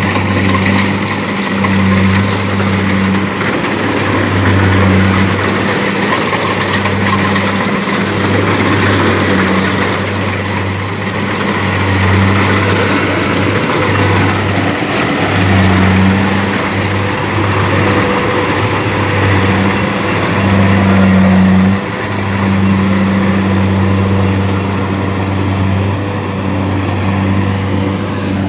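Kubota DC70 combine harvester running, its diesel engine note a low hum that swells and fades every second or two over the steady clatter and whir of the machine.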